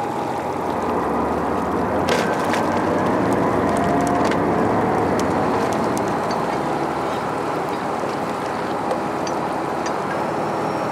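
Tugboat engine running steadily with water churning, and a few sharp clinks of a heavy chain being handled.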